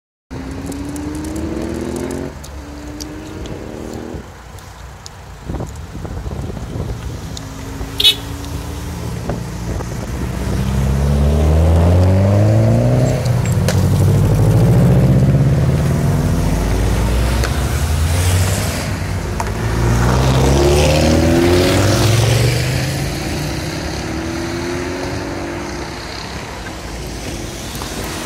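A string of cars, some of them modified, driving past one after another, their engines revving up through the gears with rising pitch and loudest about halfway through. A single sharp crack sounds about eight seconds in.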